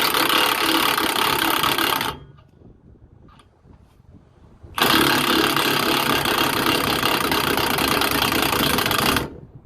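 Milwaukee M18 Fuel 2780-20 cordless angle grinder cutting metal in two bursts. The first cut stops about two seconds in, and the grinder starts cutting again about five seconds in, stopping shortly before the end.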